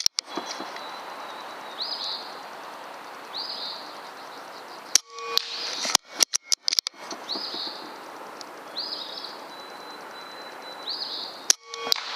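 Benjamin Armada .22 PCP air rifle shots and bolt clicks come in sharp clusters near the start, about five seconds in, a second or so later, and near the end. Between them is steady outdoor hiss, with a bird giving about five short chirps.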